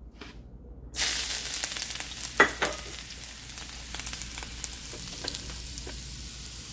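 Finely sliced ginger hitting hot olive oil in a stainless steel wok: the oil starts sizzling suddenly about a second in and keeps frying steadily with small crackles. A single sharp clink sounds about a second and a half after the sizzle starts.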